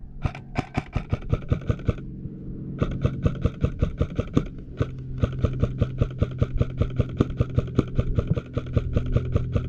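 AR-15-style airsoft rifle firing long full-auto bursts of rapid, evenly spaced shots, with a steady low hum under the firing. The bursts pause briefly about two seconds in and again around four and a half seconds in.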